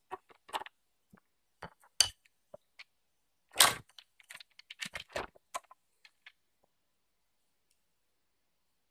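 Hard plastic toy parts clacking and knocking together as a toy excavator's arm and bucket and small plastic block pieces are handled. The knocks are irregular, the loudest about three and a half seconds in, and they die away after about six and a half seconds.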